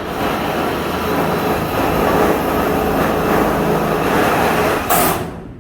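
Strong wind blowing hard: a loud, steady rush of noise that ends abruptly about five seconds in.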